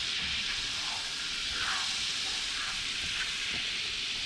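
Melted butter and flour sizzling in a skillet on the stove: a steady frying hiss as the roux cooks and thickens.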